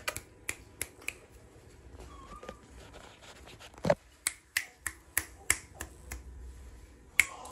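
A run of sharp clicks, a few a second and fairly evenly spaced in the second half, with one heavier knock about four seconds in.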